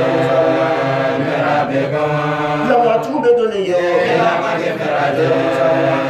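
A man chanting in a melodic voice, holding long notes that glide from one pitch to the next with only brief breaks between phrases.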